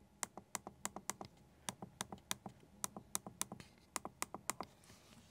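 Keys of a SwissMicros DM42 calculator pressed one after another close to a handheld microphone: a run of sharp clicks, about five a second, with two short pauses.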